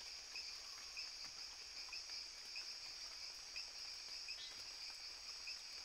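Faint insect chorus: a steady high trill with soft chirps repeating about twice a second.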